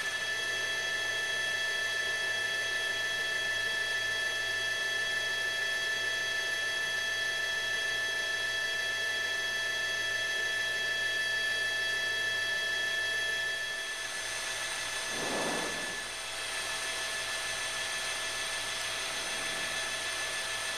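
Steady whine of an aircraft turbine engine over a hiss, holding several high tones. The tones shift slightly about 14 seconds in, with a brief lower swell just after.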